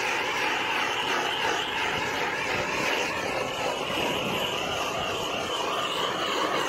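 Hand-held gas torch burning, a steady rushing noise with a slight waver, as its flame is played over a heat-shrink sleeve to shrink it down onto a medium-voltage cable joint.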